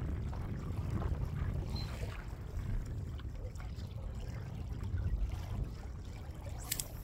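Water lapping and trickling against a kayak hull under a steady low rumble, with scattered small clicks and one sharp splash near the end.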